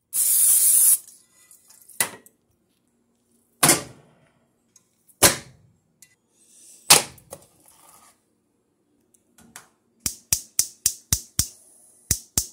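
A second-long hiss at the start, then a few single knocks as a raw steak is handled and laid in a nonstick frying pan. About ten seconds in, a gas stove's spark igniter starts clicking about four times a second without the burner catching.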